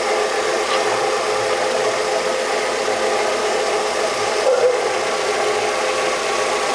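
VW Gol G5's 1.0 four-cylinder engine idling steadily, running to circulate water through the cooling system during a coolant flush.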